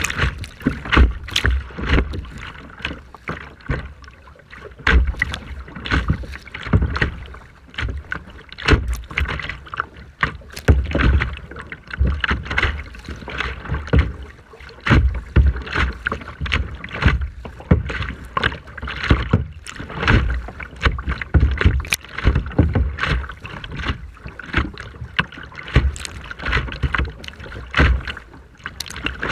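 Rough sea water sloshing and splashing in rapid, irregular slaps, with wind buffeting the microphone.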